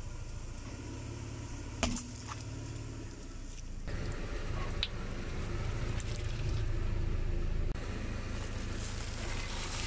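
Car engine running at low speed while the car rolls slowly, with one sharp crack about two seconds in as a tyre crushes something, and a smaller click near five seconds.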